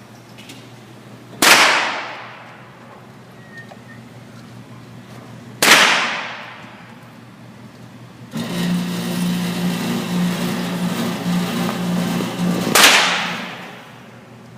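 Three single gunshots, a few seconds apart, each followed by a long echoing tail. Between the second and third shot, a steady hiss with a pulsing low hum runs for about four seconds.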